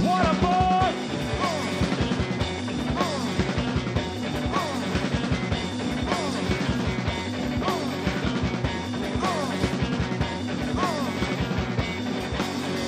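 Live rock band playing an instrumental passage: drums and electric guitar, with a high figure that bends up and back down, repeating about every second and a half.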